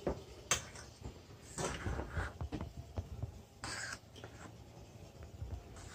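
A utensil stirring food in a cooking pot: a few short scrapes against the pot with scattered light clicks and taps.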